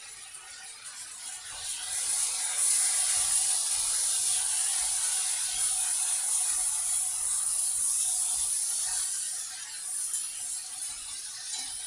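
A steady hiss, swelling about two seconds in and easing near the end.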